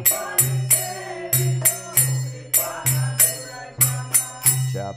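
Kirtan accompaniment in a gap between sung lines: metallic hand cymbals struck in a steady rhythm, two to three ringing strokes a second, over a low drone and drum.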